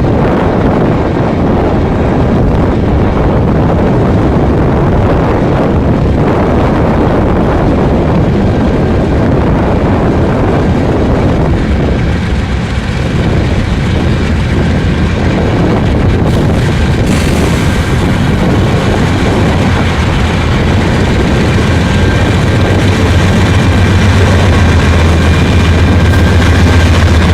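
Freight train running: a loud, steady rumble of rolling cars, with a deep diesel locomotive drone coming up in the last few seconds.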